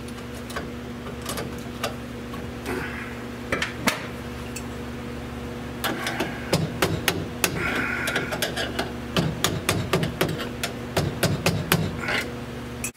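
Repeated sharp taps and knocks as the Hurst T-top trim is worked into place on the roof, coming thick and fast from about halfway through.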